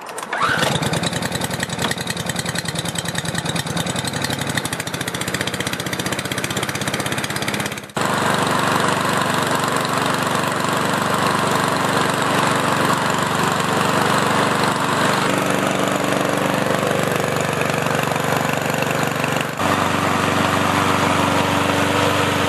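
The Chinese-made overhead-valve engine of a Cub Cadet walk-behind lawn mower, its valves freshly adjusted, is pull-started and catches about half a second in. It then runs steadily.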